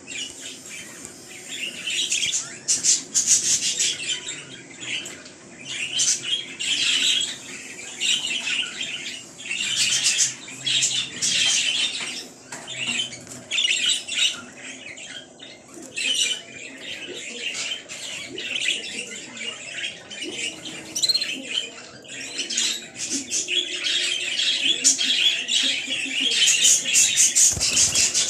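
Budgerigars chattering: a fast, continuous warble of chirps and squawks in bouts that come and go, loudest near the end, with a flutter of wings as one bird flies across the cage.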